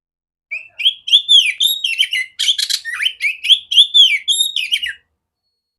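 Male oriental magpie-robin singing a loud, clear run of quick, varied whistled phrases that rise and fall in pitch. The song starts about half a second in and stops abruptly near the end.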